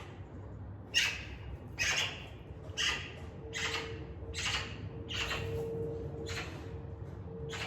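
Australian magpie giving a series of about eight harsh, rasping squawks, roughly one a second.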